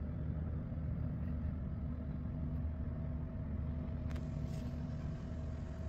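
Steady low background hum with a few faint held tones and no speech.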